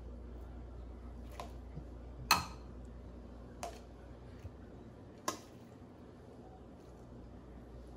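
Metal tongs clicking against a stainless steel mixing bowl four times as shrimp are lifted out of the sauce. The second click is the loudest. A faint low hum runs underneath.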